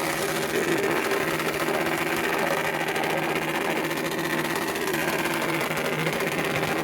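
Honda Super Cub motorcycle engine running steadily, with a fast, even buzz from its exhaust.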